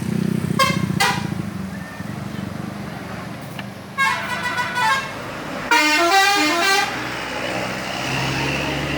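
Bus telolet horn, a multi-tone musical horn, sounding over a running bus engine: two short toots about half a second and a second in, then a stepped multi-note phrase about four seconds in and a longer falling-and-rising melody near six seconds.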